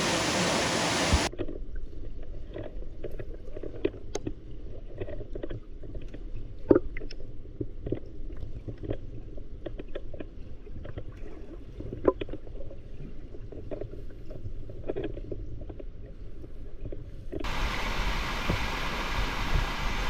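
A waterfall heard from a microphone dipped underwater. About a second in, the sound turns muffled and low, with scattered clicks and knocks. Near the end, the open sound of falling water comes back.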